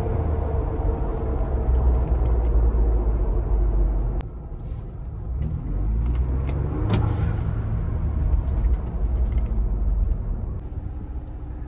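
Ford Bronco's turbocharged engine, fitted with an Injen cold air intake, heard from inside the cabin while driving. The rumble eases off about four seconds in, then builds again with a rising note as the Bronco accelerates.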